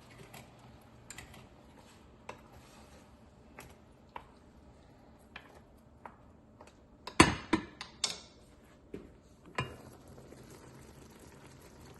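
Kitchen utensils tapping and clattering against cookware and dishes: scattered light clicks, then a run of louder knocks about seven to eight seconds in and one more near ten seconds.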